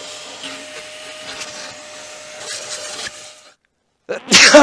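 Vacuum cleaner hose sucking over a car's bare floor carpet: a steady rushing noise with a constant hum, cutting off suddenly about three and a half seconds in. Near the end a man's loud voiced outburst, falling in pitch, is the loudest sound.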